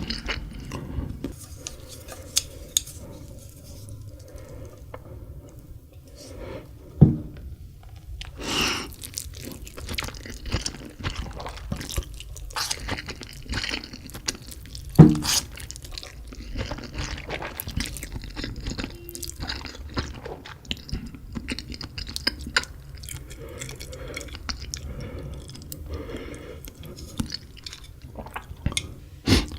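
Close-miked chewing of spicy instant noodles: a run of small mouth clicks and smacks, with two louder smacks, one about a third of the way in and one about halfway.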